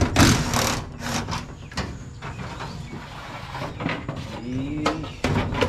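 Knocks, clicks and scraping from hands and tools working inside a race car's sheet-metal cockpit, with a loud noisy rush in the first half second.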